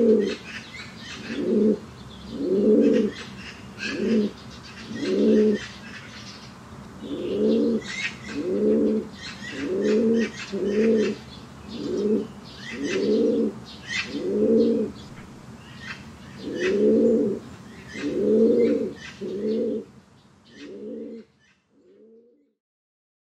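Domestic fancy pigeons cooing, one low cooing phrase after another about once a second, with high chirping behind them. The cooing grows fainter and stops near the end.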